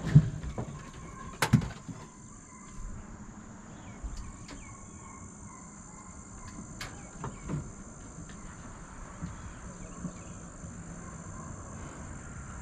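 Insects droning steadily in a high, even band, with two sharp knocks in the first two seconds and a faint low rumble underneath.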